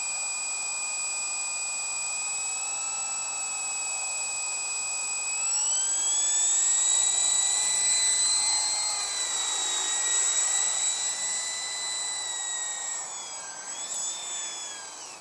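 Esky King 3 RC helicopter, its motor and rotor whining steadily. The whine rises in pitch and grows louder about five and a half seconds in, holds high, then falls and wavers near the end.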